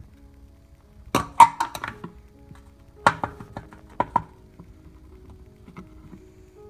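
Hard clicks and knocks in a stainless steel kitchen sink as a drain strainer is handled and pulled out, in three quick clusters: about a second in, about three seconds in and around four seconds in. Faint background music runs underneath.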